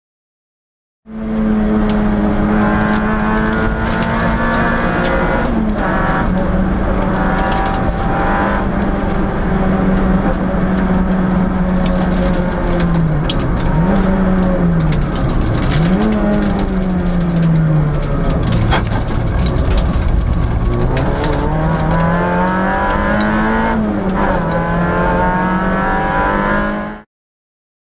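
Peugeot 106 S16 rally car's 1.6-litre 16-valve four-cylinder engine heard from inside the stripped cabin, held at high revs under full load, its note dipping briefly a few times around the middle on lifts and shifts before climbing again, with scattered sharp clicks and knocks. The sound cuts in about a second in and cuts off abruptly near the end.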